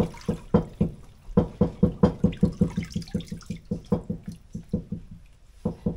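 Hands rubbing and squeezing watercress in a plastic basin of water: a quick, rhythmic sloshing at about five strokes a second, from about a second and a half in until near the end, after a few separate splashes.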